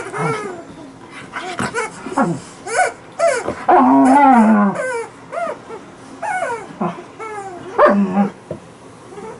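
Alaskan malamute vocalising in a run of short whining calls that slide up and down in pitch. About four seconds in comes one longer, louder and lower call that falls away at its end.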